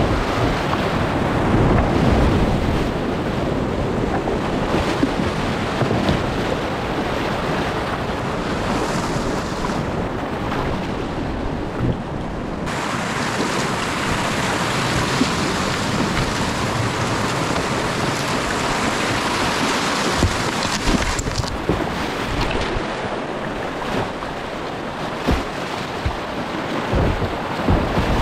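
Whitewater rushing around a kayak running a creek rapid, heard through a GoPro, with occasional splashes and knocks from paddle strokes. About halfway through, the rush turns brighter and hissier for several seconds, then settles again.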